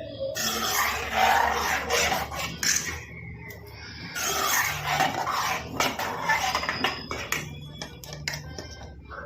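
Spoon or spatula scraping around the bottom of a cooking pot while stirring thickening daliya (broken wheat) kheer, keeping it from catching. The scraping comes in two spells with a short pause about three seconds in, and turns softer near the end.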